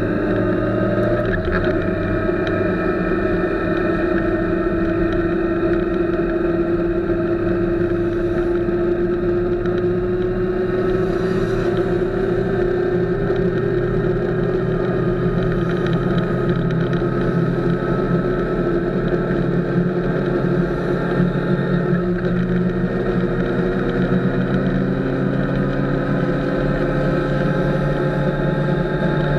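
Motorcycle engine running at highway speed, heard from an action camera mounted on the bike, over a steady rush of wind. The engine note climbs slowly as the bike gathers speed, changes abruptly about two-thirds of the way through, then climbs again.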